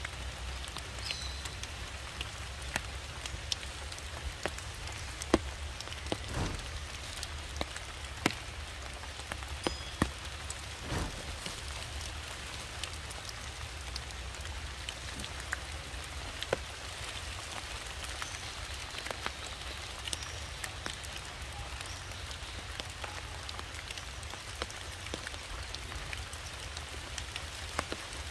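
Raindrops falling on wet leaves and stones: many single drops ticking at irregular intervals over a steady hiss, with a low steady rumble underneath.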